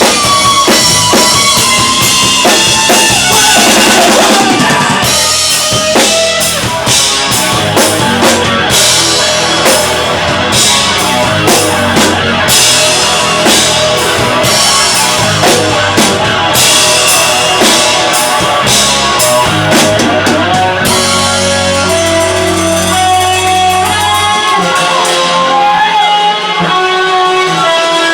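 Live rock band playing loud: guitar over a drum kit with a steady beat. The bass drops out near the end.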